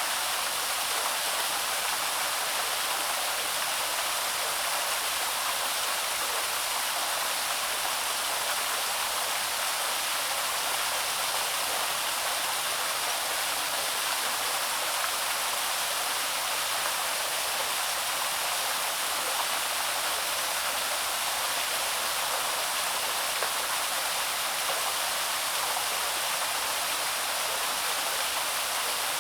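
Small stream waterfall running steadily: an even rush of falling and splashing water, bright and hissy, with little deep rumble and no breaks.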